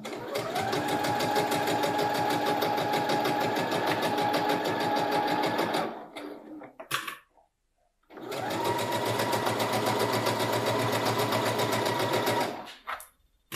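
Domestic electric sewing machine stitching a seam through cotton fabric in two runs of about five seconds each, the motor speeding up at the start of each run, with a pause of about two seconds between them.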